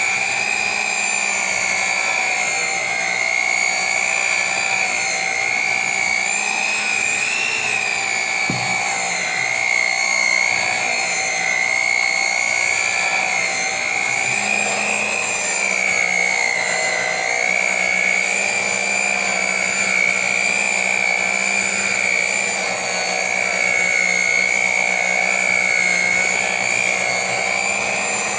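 Electric hand mixer running steadily, its small motor whining with a pitch that wavers slightly as it works the batter.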